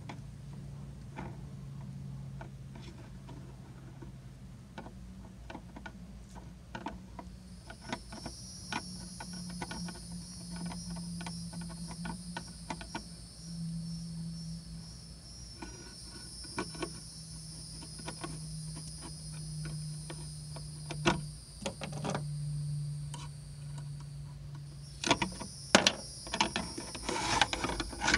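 Small clicks and rubbing from a stiff wire and twine being handled against a fiberglass boat hull, with sharper taps near the end as the wire is worked into a hole. A steady high-pitched buzz comes in about eight seconds in, over a low steady hum.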